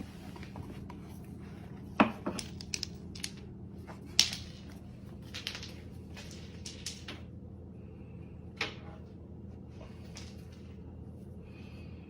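Scattered knocks and taps over a steady low hum, the loudest about two seconds in and about four seconds in, with another near the end.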